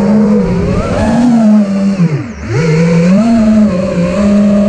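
Armattan Rooster FPV quadcopter's Brotherhobby Returner R6 brushless motors and HQ 5.1-inch three-blade props whining, the pitch rising and falling with throttle. A little over two seconds in, the pitch dips sharply as the throttle is cut, then climbs back.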